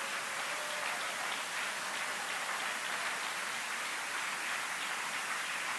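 Congregation applauding steadily, an even patter of many hands clapping.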